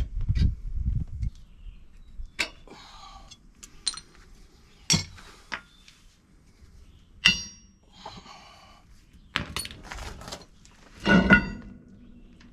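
A mallet striking the axle shaft flange at the center of a heavy truck's drive-axle hub to free it: a series of sharp knocks a second or two apart, some with a brief metallic ring. A louder clatter near the end as the flange comes loose.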